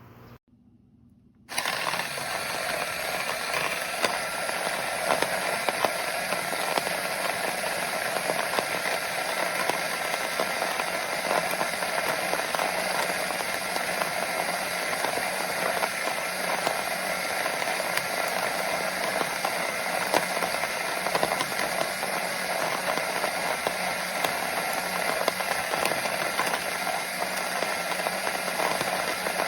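Small cordless electric conical burr coffee grinder running steadily, grinding coffee beans. It starts about a second and a half in, with a dense crackle of fine ticks over the motor's hum.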